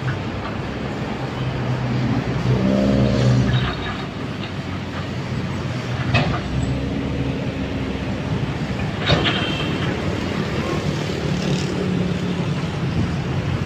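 Steady motor-vehicle noise with engine hum that swells twice as vehicles pass, and two sharp knocks about 6 and 9 seconds in.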